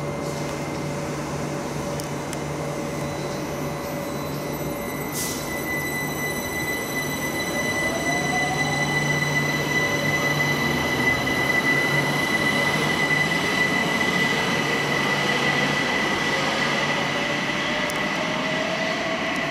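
London Overground Class 378 electric trains in a subsurface station, with a steady high-pitched whine and traction-motor whines that slowly rise in pitch as a train accelerates away from the platform. The sound grows louder over the second half, as another train approaches on the far track.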